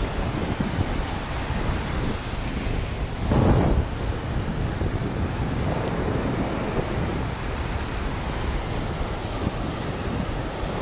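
Ocean surf breaking and washing up the beach, a steady rush with a low rumble and one louder wave crash about three and a half seconds in.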